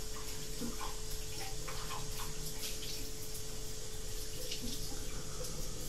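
Tap water running into a kitchen sink while a container is rinsed out, with a few light clinks and knocks against it.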